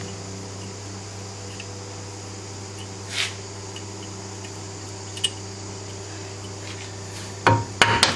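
A steady low hum with a few faint clicks. Near the end, sharp hammer blows begin, knocking at a VW engine crankcase to split its halves apart.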